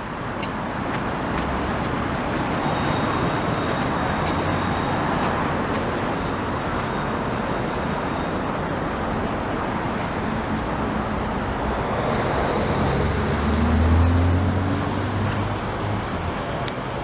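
Steady road-traffic noise, with one vehicle passing close, its engine hum rising and loudest about two-thirds of the way through.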